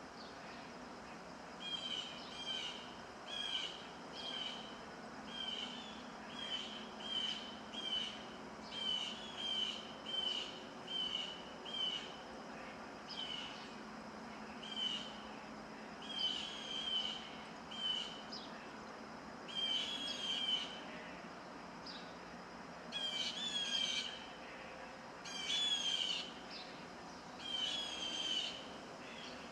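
A songbird calling over and over: short, high notes about once a second, then longer phrases spaced a few seconds apart later on. Under it runs a steady, faint hiss of wind.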